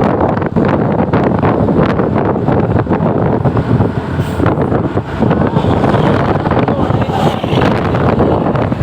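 Road traffic noise with heavy wind buffeting on the microphone, a dense steady rumble broken by rough crackles. No telolet horn tune sounds.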